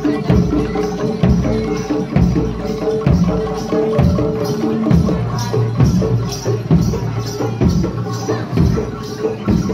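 Live jaranan ensemble music: drums struck in a steady, driving rhythm under repeated held pitched notes from the melodic instruments.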